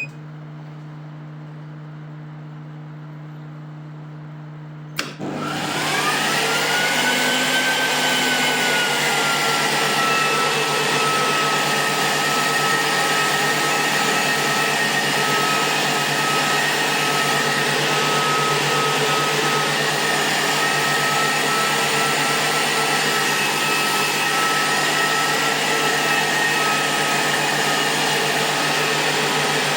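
A click and a steady electrical hum. About five seconds in, another click, and a motor-driven fan in the repaired IPL laser's power unit spins up with a rising whine, then settles into a loud, steady whir as the unit runs under test.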